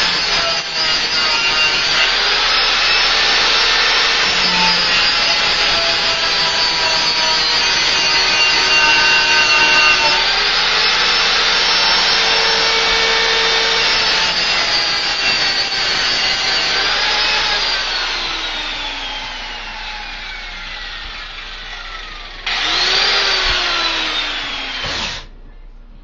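Makita 4-inch angle grinder with a sanding pad grinding the cutting edge of a lawnmower blade, its motor running at a steady high whine. It is switched off about 17 seconds in and spins down with a long falling whine, then is started again briefly near the end and winds down once more.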